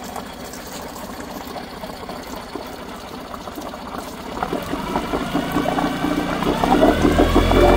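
Yamaha 212 cc four-stroke twin-cylinder outboard, fitted with a 9.9 hp carburetor, running at idle, then throttled up from about four and a half seconds in, its pitch rising and getting louder as the revs climb.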